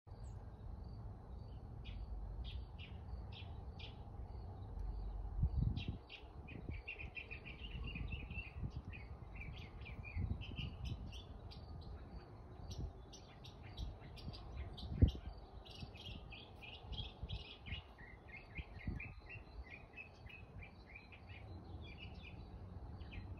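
Small birds chirping and twittering, many quick short calls throughout, over a low rumble. A single sharp knock about fifteen seconds in is the loudest moment.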